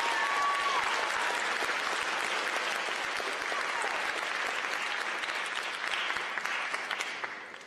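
Audience applauding in a large hall, with a high cheer rising over it in the first second; the clapping fades away near the end.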